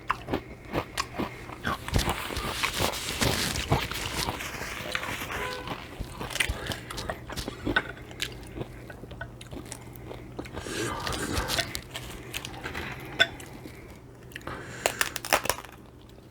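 Close-miked chewing of Mexican shrimp cocktail, with many short wet mouth clicks and smacks and denser stretches of eating noise.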